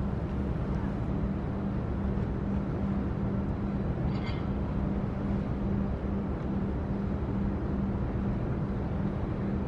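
A steady low engine drone over a dense rumbling background, with a brief high chirp about four seconds in.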